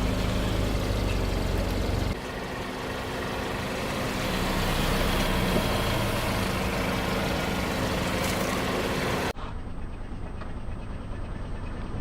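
Car engine running steadily at low revs, with abrupt cuts to other takes about two seconds in and about nine seconds in; the last part sounds duller.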